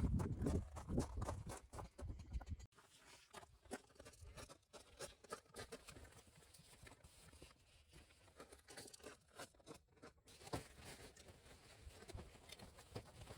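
Wood campfire crackling, with many small sharp snaps and pops. For the first two to three seconds a louder low rumble and rustling sits under it, then stops abruptly.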